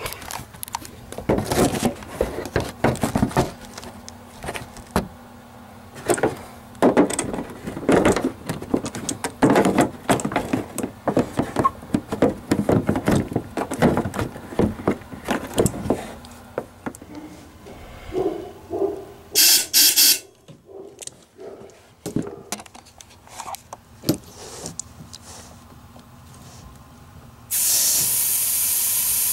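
Knocking and scraping of a tapered flushing tool being fitted into an HVAC condensate drain line, then a short hissing blast about two-thirds of the way through. Near the end a steady loud hissing rush starts as pressure is blown through the drain line to clear the clog.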